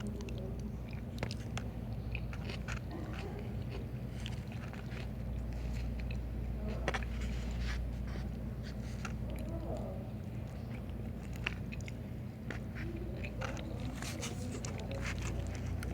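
Close-miked eating: chewing and biting with wet mouth sounds and scattered crunchy clicks, over a steady low hum.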